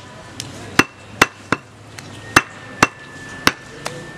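Butcher's cleaver chopping goat meat on a wooden stump chopping block: about six sharp chops, unevenly spaced, roughly two a second.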